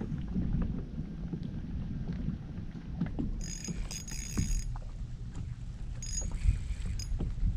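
Wind on the microphone and small waves lapping against a plastic kayak hull, a steady low rumble with light knocks. A brief high-pitched buzzing whir comes near the middle and again, shorter, about six seconds in.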